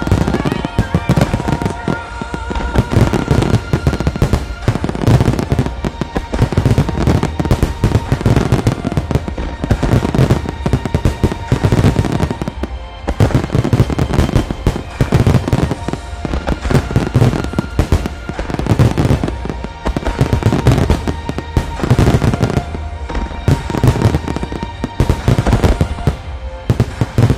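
Finale barrage of aerial firework shells and low-level comets, many bursting at once in dense, continuous volleys, with music playing alongside.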